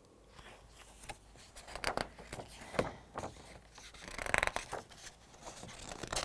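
Faint paper rustling and brushing as the pages of a picture book are handled and turned, with a louder swish a little past the middle.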